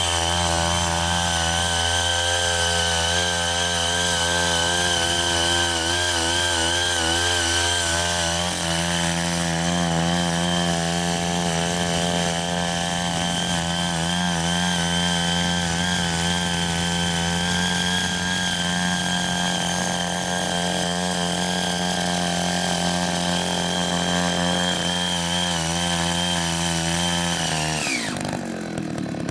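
Small engine of a CY80 mini rotary tiller running steadily at high speed as its tines churn loose soil, its pitch wavering slightly under the load. Near the end the engine winds down with a falling pitch.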